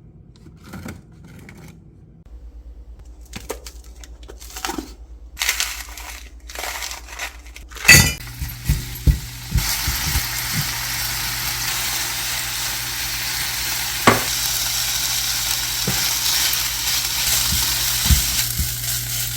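Kitchen clatter of dishes and utensils, with scattered clinks and a sharp knock, followed by a steady sizzling that runs on from about halfway through with a few more knocks over it.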